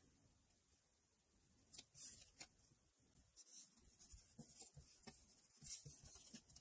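Faint rustling and rubbing of paper on card: a stamped paper panel is laid onto a glued kraft card and pressed down by hand, in a few short strokes.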